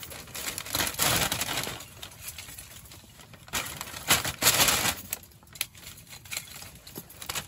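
Dry kindling sticks being stuffed into a paper lunch sack: wood clattering and scraping and the paper crinkling, in several irregular bursts, the loudest about a second in and again around four to five seconds.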